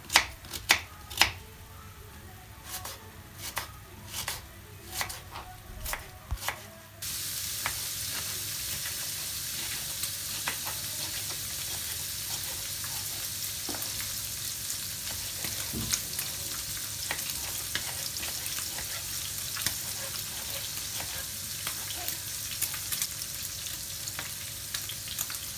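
A knife chopping vegetables on a wooden cutting board, irregular sharp taps. About seven seconds in, a steady sizzle of cubed beef frying in oil in a pan takes over, with scattered crackles.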